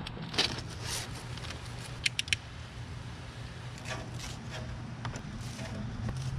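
Rustling and scraping of corrugated plastic split-loom sleeve and a plastic bag being handled while a bundle of wires is worked into the sleeve, with a quick run of three sharp clicks about two seconds in, over a low steady hum.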